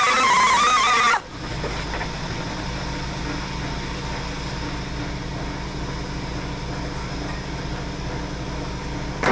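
Angle grinder grinding the truck bed's sheet steel, its whine wavering under load. About a second in the loud grinding stops abruptly and a steady, quieter machine hum runs on.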